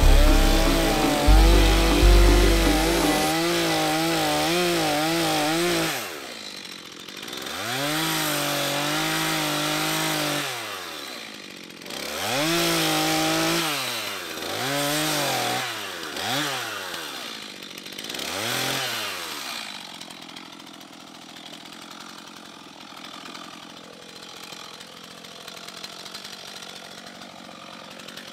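Stihl MS 251 two-stroke chainsaw running at high revs while cutting at the base of a tree, then revved up and down about five times, its pitch rising, holding and falling each time. For the last several seconds it runs much quieter.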